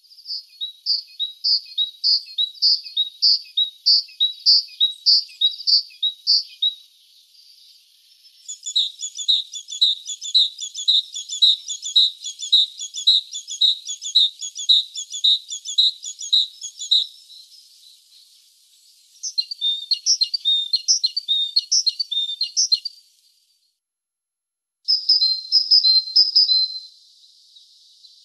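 Great tit singing: four bouts of a high phrase repeated evenly, about two to three times a second, with short pauses between the bouts.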